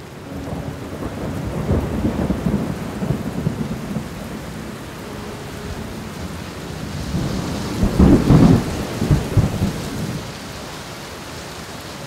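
Thunderstorm: steady heavy rain with thunder rumbling, swelling a second or two in, then a louder peal of thunder with several rolling rumbles about two-thirds of the way through.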